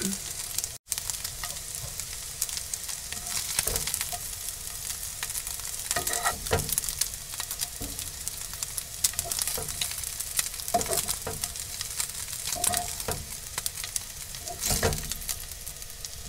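Sliced kebab meat sizzling in a non-stick frying pan, with tongs scraping and clacking against the pan now and then as pieces are picked up.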